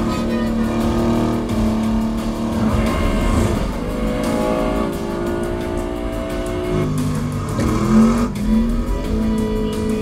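Movie car-chase soundtrack: car engines revving over background music, with a rising rev and a loud peak about eight seconds in.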